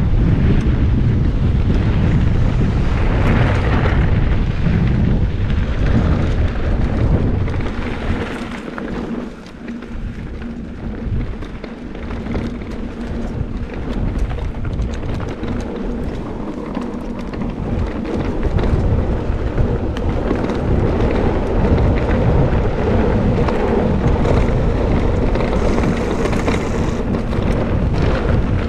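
Wind buffeting the microphone in a loud, low rumble, easing briefly about nine seconds in, over small clicks and knocks from a mountain bike rolling along dry dirt singletrack.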